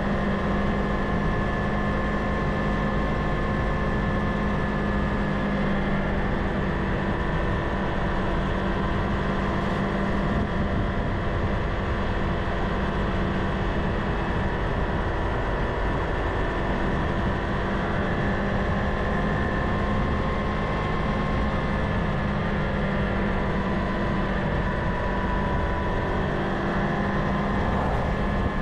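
Kawasaki Ninja 500's parallel-twin engine running at a steady cruise, its note holding one pitch throughout, under a low rush of riding noise.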